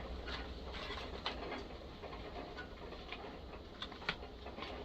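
A few faint clicks and taps of small tools being handled, over a low steady hum.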